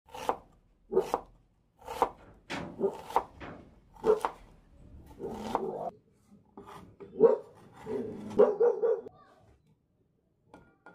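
A dog barking repeatedly, one bark every half second to a second, with a quicker run of barks near the end that stops about nine seconds in.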